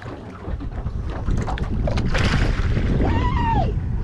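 Wind buffeting the microphone over the low rumble of an open boat at sea, with a short rising-then-falling vocal call about three seconds in.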